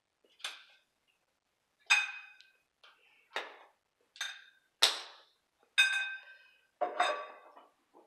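A length of copper pipe knocked about seven times at irregular intervals, each knock ringing briefly with the same bell-like metallic tone.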